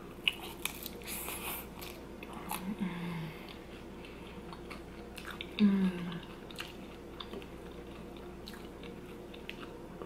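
A close-miked mouthful of poutine (crispy fries in gravy with melted vegan mozzarella) being bitten and chewed. Crisp clicks and crunching come in the first second or so, then softer wet chewing.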